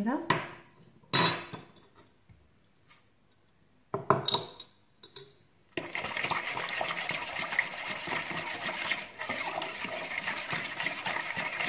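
A few short clinks of a spoon, then about six seconds of steady swishing as sugar and yeast are stirred into warm water in a plastic mixing bowl.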